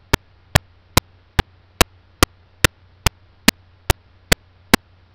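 Sharp, evenly spaced ticks, about two and a half a second, over a steady low hum.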